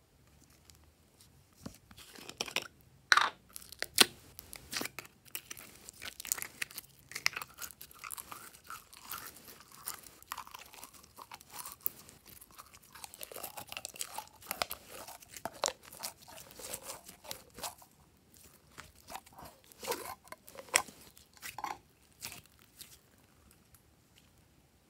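Glossy slime handled and pulled from its containers, making sticky clicking, popping and squelching sounds. There are a few sharp, louder clicks about three to four seconds in as the small plastic containers are handled and opened, and it goes quieter near the end.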